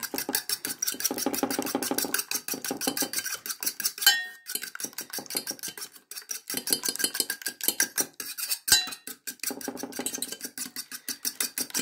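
A metal fork whisking egg in an enamel bowl, clicking quickly and steadily against the bowl. About four seconds in there is a louder clink that rings briefly, and the beating pauses for a moment a couple of times.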